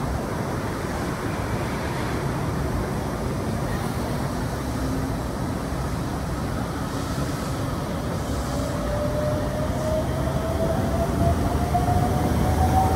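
Hokuso Railway 9800 series electric train pulling away from a platform: after a steady low rumble, the traction motors begin a whine about eight seconds in that rises in pitch as the train accelerates, and the sound grows louder toward the end.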